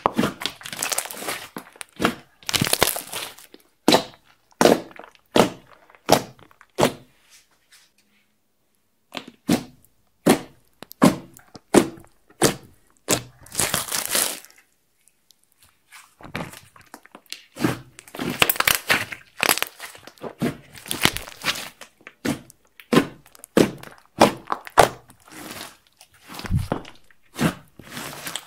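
Slime being squeezed, pressed and poked by hand: a string of short, sharp clicky pops and squelches from air pockets bursting in the slime, with a couple of brief pauses.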